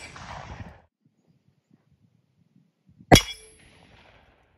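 A shot from a Kimber 10mm pistol about three seconds in, with a metallic ring from the AR500 steel target plate that dies away within about a second. The tail of an earlier shot fades out in the first second.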